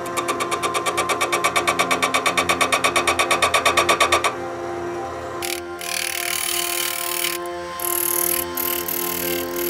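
Jet 1014 wood lathe turning an ash blank, with the tool tapping against the spinning wood about ten times a second, growing louder for about four seconds. After that the tapping gives way to a steadier hiss of cutting that starts and stops.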